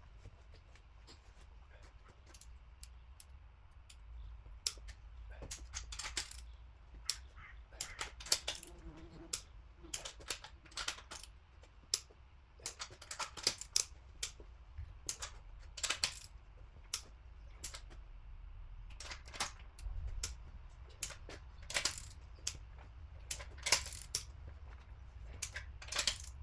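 Irregular sharp metallic clicks and clinks of hand tools and bolts being worked on a cylinder head, some coming in quick clusters, over a low steady hum.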